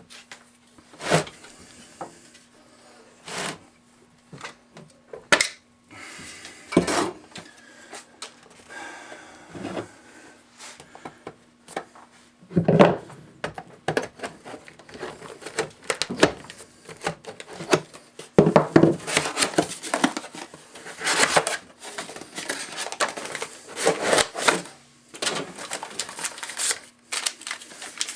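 Ammunition packaging being handled and opened: scattered sharp clicks and knocks, then denser clattering and rustling from about 18 seconds in.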